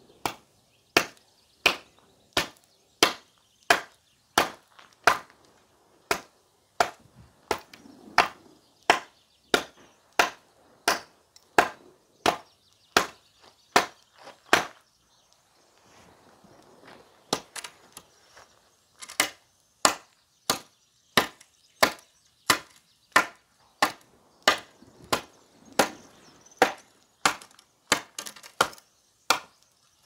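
A Cold Steel SR1 Lite folding knife's thick blade chopping into a wooden lath, a steady run of sharp blows about one and a half a second, with a pause of about two seconds midway.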